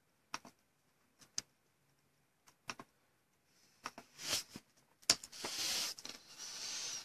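Faint, scattered clicks and taps, then soft rustling noise over the last two seconds.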